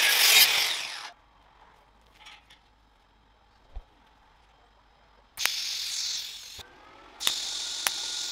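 Angle grinder grinding a stainless steel tube, stopping abruptly about a second in. After a quiet pause, a TIG welding arc strikes twice, each time a sharp click followed by about a second of steady hiss, as the tube joint is tacked.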